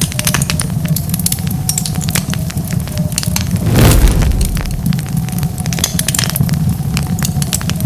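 Wood fire crackling, with a steady low rumble of flame under dense, irregular sharp pops and snaps. About four seconds in there is one louder, fuller burst.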